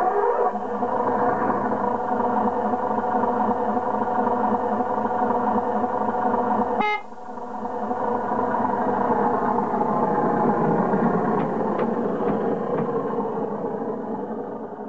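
Diesel engine sound from the sound-effect module of a 5 inch gauge electric Bo-Bo miniature locomotive, starting up and running with a steady multi-tone drone. About seven seconds in there is a very short horn toot. After it the engine sound drops and builds up again, then begins to fade near the end.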